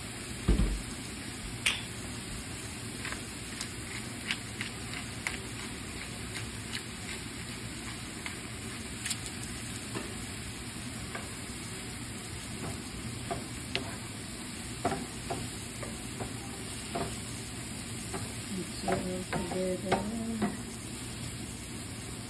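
Diced ham and vegetables sizzling in a nonstick frying pan as a wooden spoon stirs them, with frequent light clicks and scrapes of the spoon against the pan.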